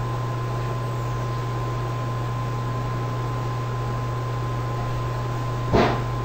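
Steady electrical hum and hiss of the recording's background noise, with a thin steady whine. A single short click or knock comes near the end.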